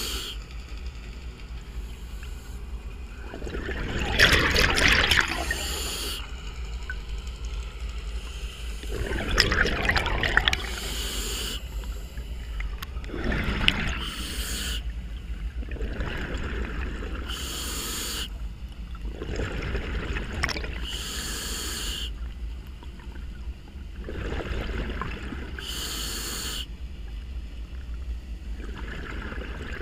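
Scuba diver breathing through a regulator underwater: a hissing inhalation every few seconds, alternating with louder bursts of exhaled bubbles.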